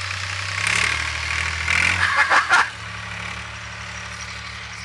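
Tractor engine running steadily with a low hum. Loud short noisy bursts sound over it about a second in and again around two seconds in, after which the engine carries on more quietly.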